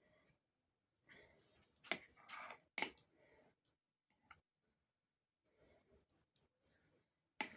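Scattered clicks and taps from hands working pirozhki dough at a table, the two sharpest about two and three seconds in, with quiet gaps between.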